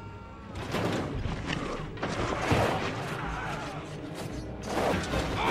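Film battle soundtrack: orchestral score over the din of massed fighting, with sudden crashes and thuds, the loudest about two and a half seconds in.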